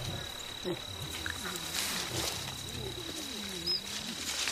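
Mountain gorillas making low rumbling, wavering vocalisations as they feed, over one steady high insect note.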